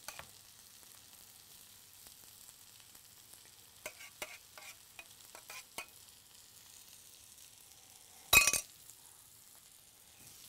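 Light clicks of utensils against cookware over a faint sizzle of food in a hot pan. About eight seconds in comes one loud metallic clank.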